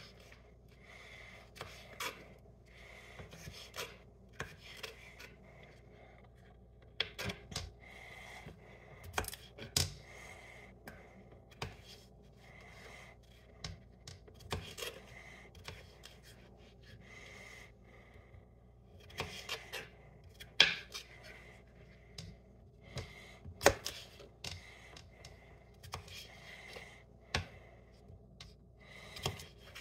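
Small kitchen knife cutting a cucumber into small chunks on a cutting board: irregular light taps and clicks of the blade through the cucumber onto the board, with a few sharper knocks, the loudest about two-thirds of the way through.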